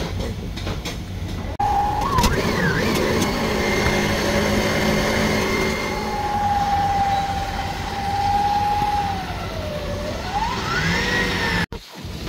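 Stand mixer motor running as it beats cheesecake batter, a steady low hum. Over it, from about a second and a half in, a loud siren-like wail slides up and down and holds in between, then cuts off suddenly near the end.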